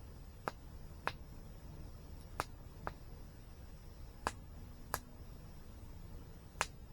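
Campfire crackling: seven sharp, separate pops at irregular intervals over a low, steady background rush.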